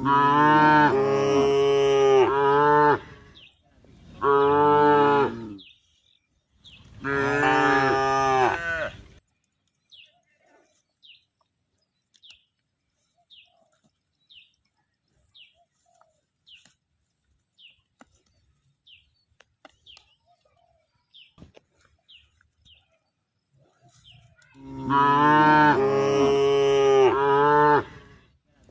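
A cow mooing: three long, loud moos in quick succession, then a long pause and one more long moo near the end. Faint short chirps, about one a second, fill the pause.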